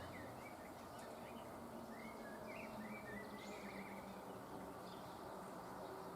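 A small bird twittering faintly, a quick run of short chirps in the first half, over a steady outdoor background hiss.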